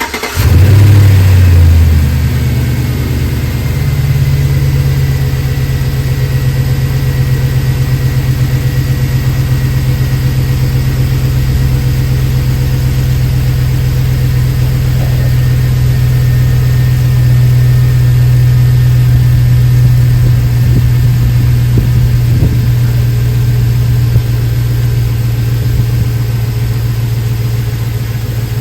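2006 Chevy Silverado V8 just started after a cold air intake was fitted. It catches and runs fast for the first second or two, then settles into a steady idle.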